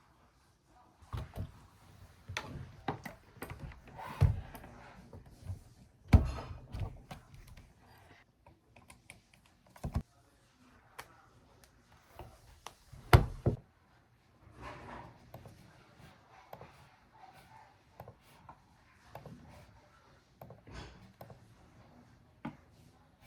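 Objects being handled and set down indoors: scattered knocks, clicks and thuds, with louder thumps about four, six and thirteen seconds in.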